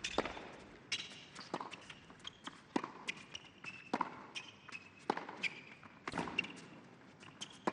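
Tennis rally on a hard court: racquets striking the ball about once a second, with the ball's bounces between the strokes.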